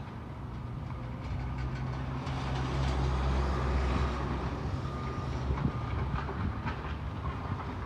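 Heavy demolition machine's diesel engine running, swelling for a couple of seconds, with scattered knocks and clatter and brief metallic squeals.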